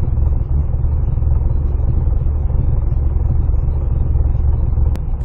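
LS V8 engine on Holley Terminator X EFI idling steadily at about 1,100 rpm, a fast idle held up by the idle air control while the engine warms up.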